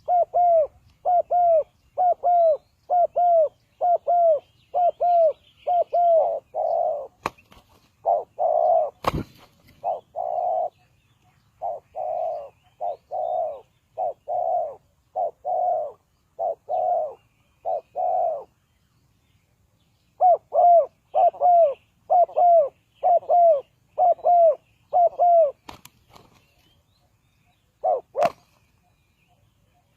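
Spotted dove calling: a long run of short, evenly spaced coos, about two a second, with a pause of a couple of seconds past the middle. A few sharp clicks fall between the notes.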